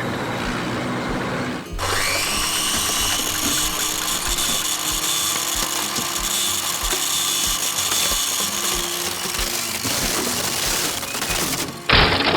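A power tool whirring over background music: it spins up with a rising whine about two seconds in, runs steadily and cuts off near the end, followed by a short, loud burst.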